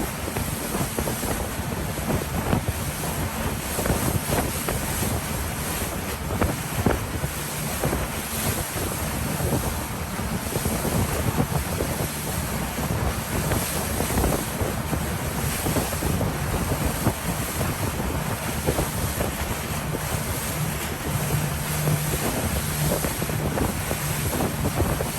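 Motorboat running under way on the sea: a steady engine drone under heavy wind noise on the microphone and the rush of water.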